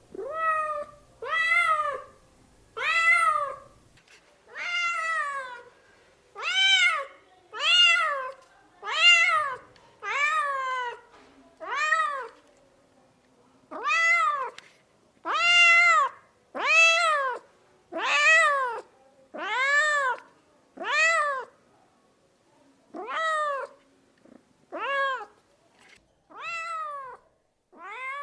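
A domestic cat meowing over and over, about twenty meows at roughly one a second. Each meow is a short call that rises and then falls in pitch, with two brief pauses.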